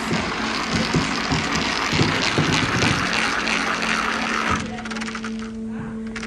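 A hand-spun disc on an interactive exhibit table whirring and rattling as it turns. The whirring stops about four and a half seconds in, when the disc is held still, and starts again near the end.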